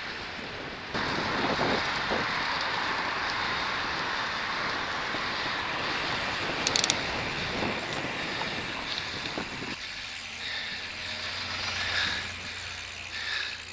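Road and traffic noise heard from a bicycle while riding: a steady rushing that drops off suddenly about ten seconds in, leaving a low steady hum. A brief high-pitched sound comes about seven seconds in.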